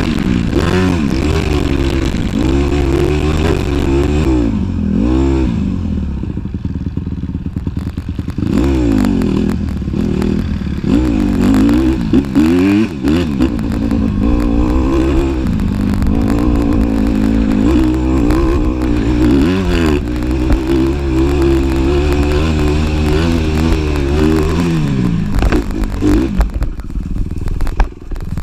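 Honda dirt bike engine revving up and down repeatedly at speed. Near the end the engine sound breaks off into jagged clattering and scraping as the bike crashes into the brush.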